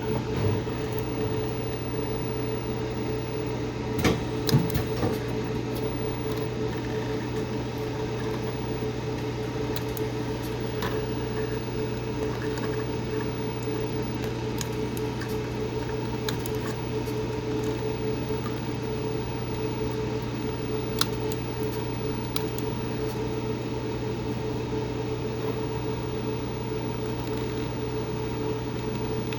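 Steady low electrical hum from the resistance welding setup. A few short sharp snaps from capacitor-discharge spot welds on a stainless steel spring come in a cluster about four seconds in, and one more about two-thirds of the way through.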